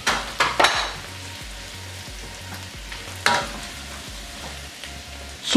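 Cooked vegetables sizzling in a hot pan while a spatula scrapes and scoops them out onto a plate, with a few sharp scrapes in the first second and another about three seconds in.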